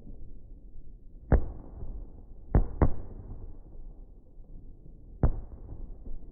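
Four firework bangs, the second and third in quick succession, over a low rumbling background.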